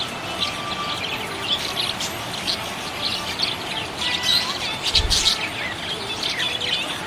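Small pet parrots, budgies or lovebirds, chirping in quick, overlapping short calls, with a brief low thump about five seconds in.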